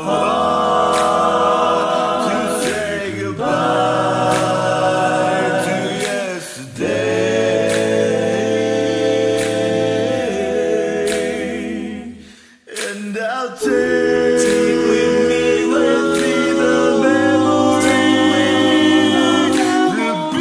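A cappella vocal harmony: several voices sing long held chords without words, the chords changing every few seconds. The singing drops out briefly about twelve seconds in, then resumes.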